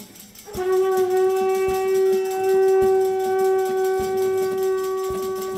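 Conch shell trumpet blown in one long, steady note, starting about half a second in and held without a break.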